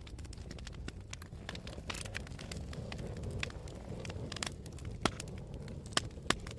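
Wood fire burning in a fireplace, crackling with many small snaps over a low steady rumble, and a few louder pops near the end.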